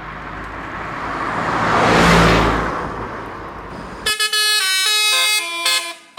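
A bus passes, its road and engine noise swelling to a peak about two seconds in and then fading. About four seconds in, a Basuri multi-tone telolet horn starts playing a quick stepped melody of clear tones.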